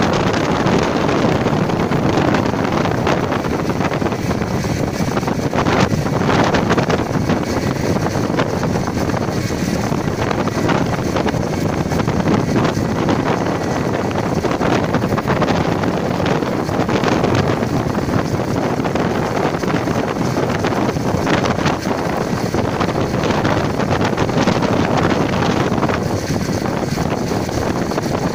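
Wind buffeting the microphone of a camera moving at road speed, over a steady rush of engine and road noise, with no change throughout.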